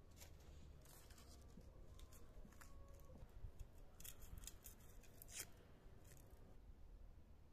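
Small kitchen knife cutting through something held in the hand: a faint, irregular series of crisp snips and clicks, thickest a little past the middle.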